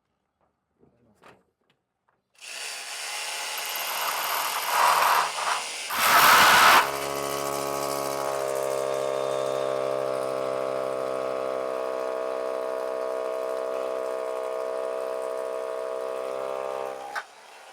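Handheld electric power tool starting about two seconds in and running at a steady speed for about fifteen seconds, with two short, louder, rougher bursts as it bites into the work near the start, then cutting off suddenly.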